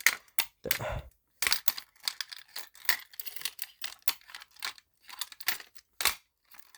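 Irregular clicks, rattles and scraping from fire alarm hardware being handled, with sharp knocks at the start and about six seconds in. No bell ringing is heard: the alarm bell is broken.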